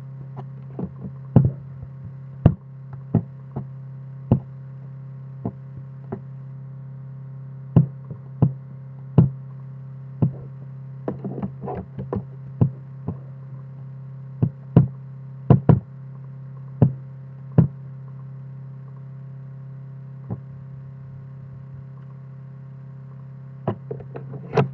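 Irregular sharp knocks, sometimes single and sometimes in quick clusters, over a steady low hum.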